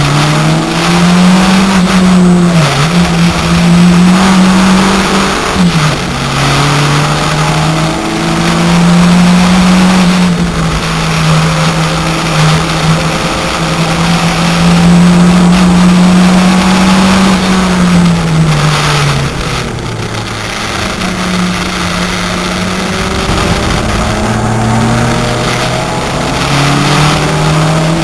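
VW Corrado's 1.8-litre turbocharged four-cylinder engine heard from inside the cabin at racing pace, its pitch climbing through the revs and dropping back at each gear change. About two-thirds of the way in it falls away under braking and runs lower for a few seconds before pulling up again.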